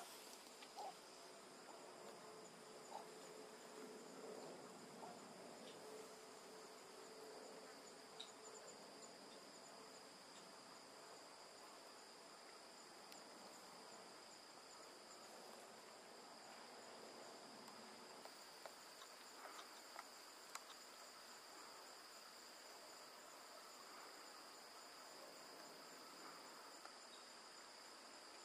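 Faint, steady high-pitched insect chorus, continuous through the whole stretch, with a few soft clicks.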